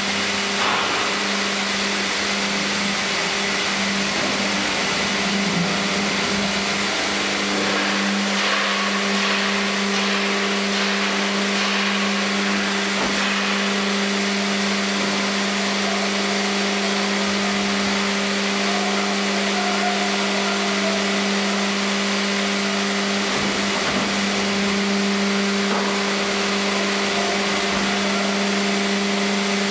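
Sawmill machinery of a tandem band saw line with a hydraulic carriage, running steadily: an even hum with a strong low tone and a fainter one above it, over a hiss of machine noise, with a few short clattering disturbances.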